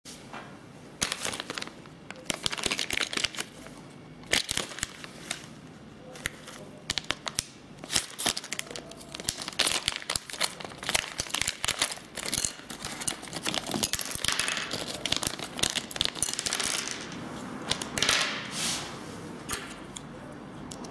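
Shiny plastic LEGO minifigure blind bag crinkling in the hands and being torn open, with small plastic minifigure parts clicking against each other and the table.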